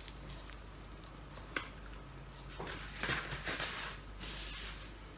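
Eating sounds at a table: a single sharp tap on tableware about one and a half seconds in, then a few seconds of chewing and soft mouth noises.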